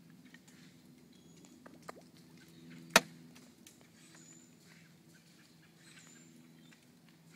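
A single sharp knock about three seconds in, an acorn dropping onto a hard surface, with a fainter tap about a second before it. A faint steady low hum runs underneath.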